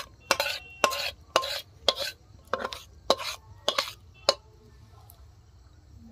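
Steel spatula scraping thick tomato sauce out of a metal kadai into a bowl. It makes a quick run of short scraping strokes, two or three a second, that stops after about four seconds.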